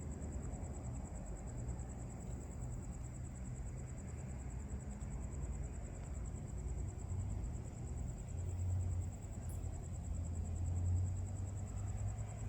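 Crickets trilling steadily in a high, fast-pulsing chirp over a low, steady hum that grows louder a little past halfway.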